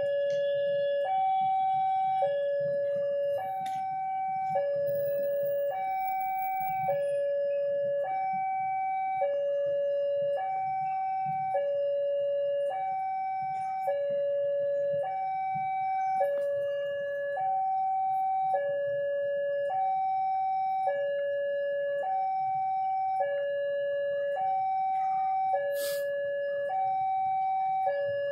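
Level-crossing warning alarm sounding: an electronic two-tone signal, a lower tone then a higher one, repeating as a pair about every two seconds. It warns that a train is approaching and the crossing is closed.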